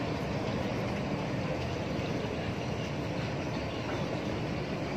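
Steady low rumble of a vehicle ferry's engines as it comes in to dock.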